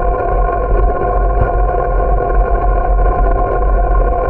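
Wind rumbling on the microphone of a bicycle-mounted camera while riding along a road, with a steady hum of several held tones over it.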